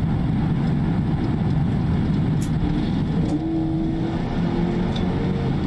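Police cruiser's engine and road noise at highway pursuit speed, heard from inside the cruiser: a steady drone, with a held engine tone coming in about three seconds in.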